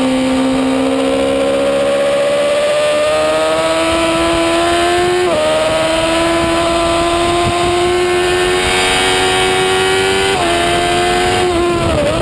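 A racing superbike's engine pulling hard at high revs, heard from on board with rushing wind noise. The pitch climbs slowly, with short breaks in the note about five and ten seconds in and a dip near the end.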